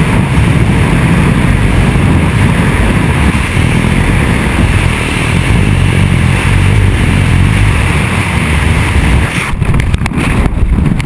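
Freefall wind rushing over the camera microphone: a loud, steady roar that breaks up and flutters in and out near the end.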